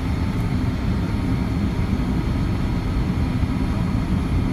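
Steady low rumble of jet engine and airflow noise in the cabin of a Boeing 787-9 on approach to land, heard from a front window seat beside the engine, with a few faint steady high tones over it.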